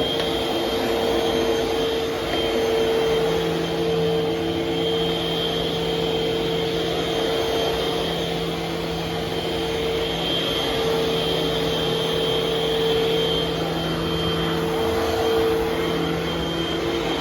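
Eureka vacuum cleaner running steadily, its motor giving a constant whine over the rush of air.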